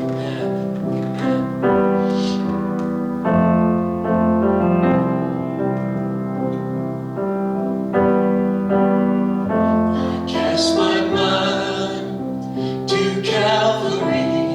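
Instrumental introduction to a worship song: held keyboard chords changing every second or two, with busier melodic notes coming in about two-thirds of the way through.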